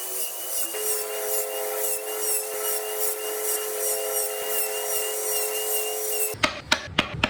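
A small power tool runs steadily against wood with an even hum and an unchanging tone. Near the end it stops, followed by several sharp knocks of wood or tools being handled.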